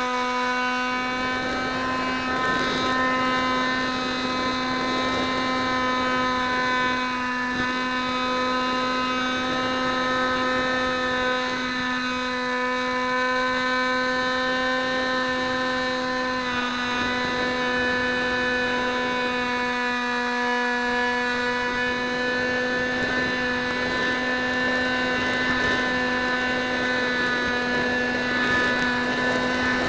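Model aircraft's motor and propeller running steadily, heard from on board: one even, droning pitch held almost constant throughout, over a light rush of air.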